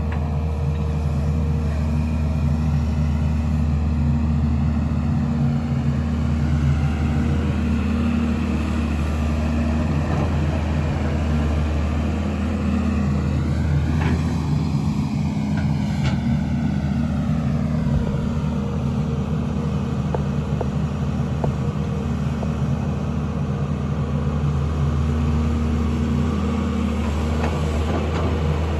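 Sany 215 excavator's diesel engine running steadily under working load, a continuous low drone, with a whine that glides up and down about halfway through.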